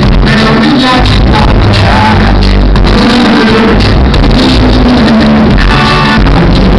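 Live band music with a male lead singer and backing vocals, loud and continuous, heard from the audience in a large hall.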